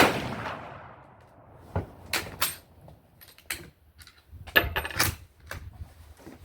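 A single rifle shot from a Siamese Type 46/66 Mauser, firing a mild 8x52mm rimmed handload, with a long fading echo. Over the next few seconds a series of sharp metallic clicks and clacks follows as the bolt is worked.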